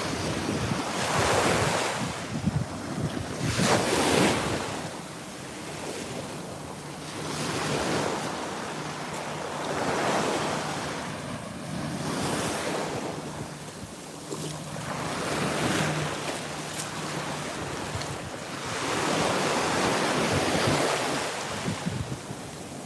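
Atlantic Ocean surf breaking and washing up the beach, swelling and fading every two to four seconds, with wind buffeting the microphone.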